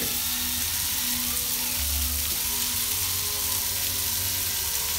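Green beans and onion sizzling as they sauté in butter in a pan, with the steady hum of a battery-powered electric corkscrew as it draws the cork from a wine bottle.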